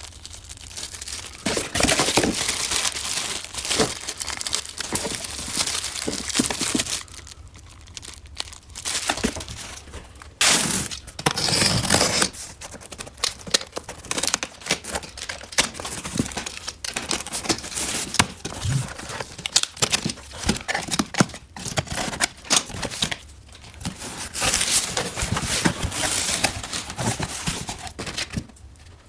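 Packaging being handled while parts are unpacked: a plastic bag crinkling, a utility knife slitting packing tape on a cardboard box, and cardboard flaps and pulp egg-carton packing rustling. Irregular rustles and scrapes run throughout, with a louder rasp about ten seconds in.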